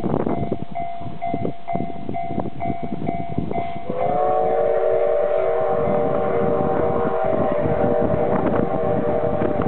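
Level crossing alarm ringing in a repeating two-tone pattern over the rough, heavy noise of a steam locomotive working. About four seconds in, the locomotive's steam whistle sounds a long chord of several notes, held to the end.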